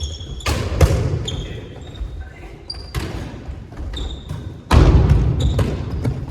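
Several heavy thumps of a ball, the loudest a little under five seconds in, with short high squeaks like shoe soles on a hard floor between them.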